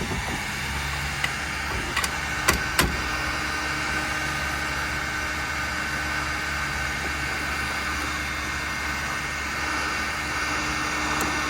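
A steady low mechanical hum, with a few sharp clicks or taps about two to three seconds in.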